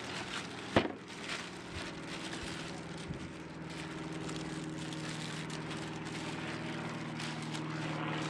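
A steady engine drone with an even pitch, getting slightly louder toward the end, over the rustle of plastic wrapping and cardboard as a foam model-plane wing is lifted out of its box. A sharp knock about a second in.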